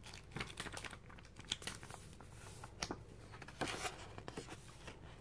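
Paper rustling as the pages of a thick instruction booklet are flipped through and loose paper inserts are handled, with several short, crisp crinkles.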